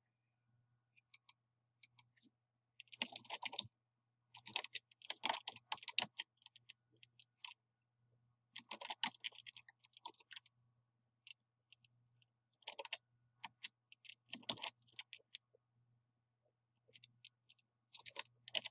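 Computer keyboard typing in short bursts of keystrokes with pauses between them.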